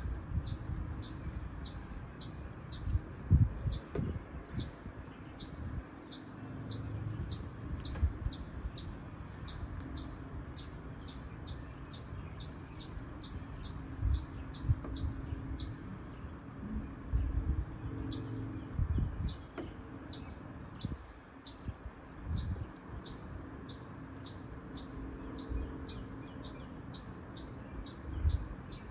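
A chipmunk's chip call: sharp high-pitched chips repeated steadily about twice a second, pausing briefly about halfway through, over a low rumble with a few thumps.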